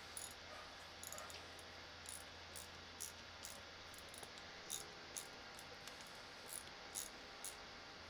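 Light, irregular metal clicks of a wrench working a toilet bolt down into a floor anchor, about two a second and uneven, over a faint steady hum.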